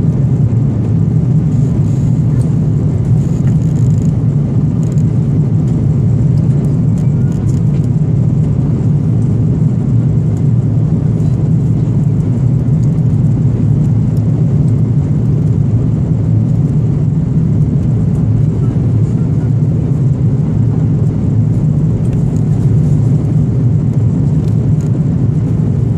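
Steady low cabin noise inside an Airbus A330-223 climbing after takeoff: its Pratt & Whitney PW4000 engines and the airflow make an even roar with no change in level.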